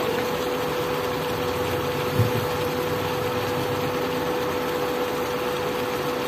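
Induction cooktop running under a frying pan of cooking chicken: a steady hum with one constant tone over an even hiss. A single soft low thump about two seconds in.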